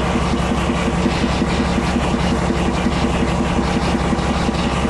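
Diesel locomotive engine running under load with a fast, even beat as the train moves slowly.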